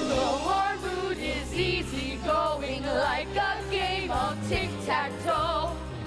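Stage musical number: voices singing a wavering, vibrato melody over steady instrumental accompaniment.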